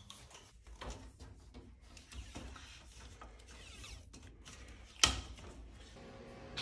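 Wooden slats of an IKEA LURÖY slatted bed base clattering and knocking together as they are rolled up and strapped, with one sharp knock about five seconds in.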